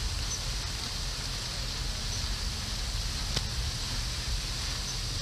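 Steady outdoor noise: a low, fluttering rumble of wind on the microphone under a steady high hiss, with one faint click about three and a half seconds in.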